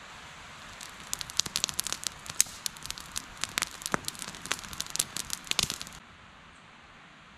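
Dense, irregular crackling and snapping over a steady hiss. It starts about a second in and stops abruptly about six seconds in, leaving a fainter hiss.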